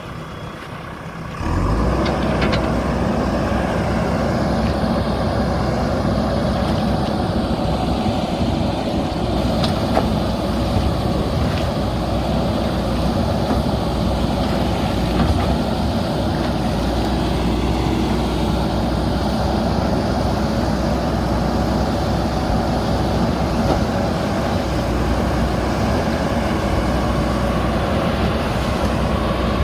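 JCB backhoe loader's diesel engine running steadily; it comes in loud about a second and a half in, with a few light knocks over it.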